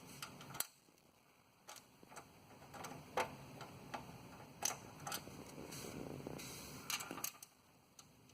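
Faint, irregular small clicks and scrapes of a screwdriver and screw against a desktop computer's metal case as a screw is worked into place.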